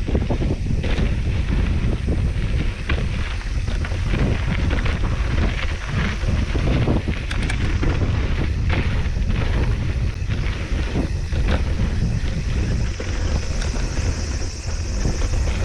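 Wind buffeting the microphone over a steady low rumble, with frequent knocks and rattles from a mountain bike being ridden over rough trail.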